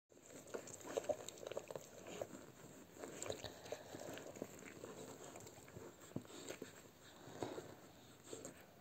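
Newborn Entlebucher Sennenhund puppies suckling at their mother: faint, irregular wet sucking and smacking clicks with small squeaks.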